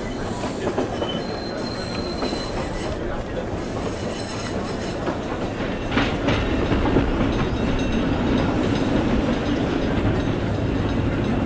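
Added tram-ride sound effect: the steady rumble and clatter of a tram's wheels running on street rails, with a thin wheel squeal about two seconds in and a sharp clank about six seconds in.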